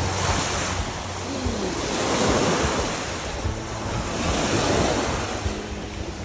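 Small lake waves lapping on a sandy shore, washing in and drawing back about every two seconds, with wind buffeting the microphone.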